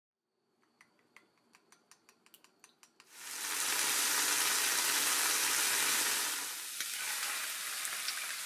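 A run of light clicks, about four a second, then chopped green peppers and canned tuna frying in sesame oil in a frying pan: a loud, steady sizzle that starts about three seconds in.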